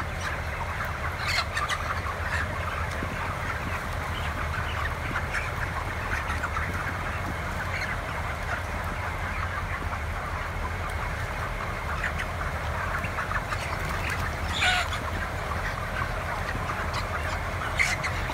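Dense, steady chatter of a large house of about 20,000 33-day-old broiler chickens, many overlapping peeps and clucks, over a steady low hum of ventilation fans. Two louder calls stand out, one about two-thirds of the way through and one near the end.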